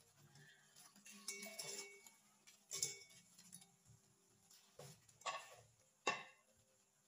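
Fried chicken pieces tumbling off a plate into a wok of sweet and sour sauce, with a few sharp clicks and taps as the plate and a spatula knock against the pan, the last and loudest about six seconds in.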